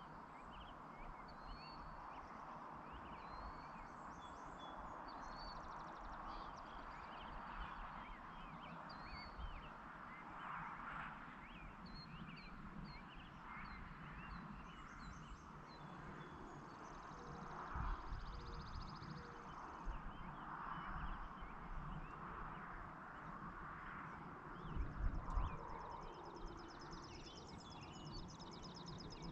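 Outdoor evening ambience: scattered bird chirps over a hazy background, with fast insect-like trills in stretches. A few low thumps come through, the loudest late on.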